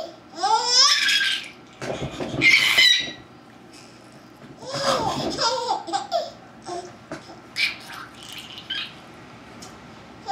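A baby girl laughing and making silly vocal noises in several bursts with short pauses between. The loudest is a high-pitched burst about two and a half seconds in.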